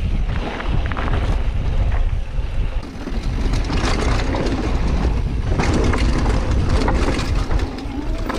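Mountain bike riding fast down a trail: wind buffeting the microphone with a heavy low rumble, over steady tyre noise and many quick rattles and clicks from the bike on rough ground.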